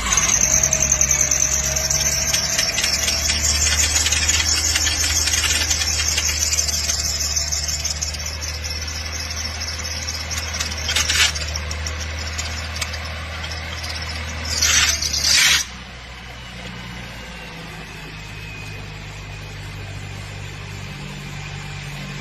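Car engine idling with its accessory drive belt squealing loudly and continuously: a slipping belt, the sign of too little belt tension. The squeal flares up briefly twice, then stops suddenly about fifteen seconds in, leaving only the engine idling.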